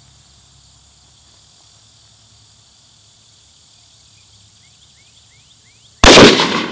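A single shot from a 16-inch-barrelled Daniel Defense DDM4v11 AR-15 carbine firing .223 Remington, very loud, about six seconds in, with an echo dying away over about a second. Before it, a faint steady insect buzz.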